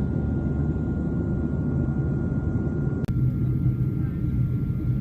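Steady low rumble of a helicopter's engine and rotor, with a thin steady whine above it. About three seconds in there is a sharp click and a brief drop, then the rumble continues.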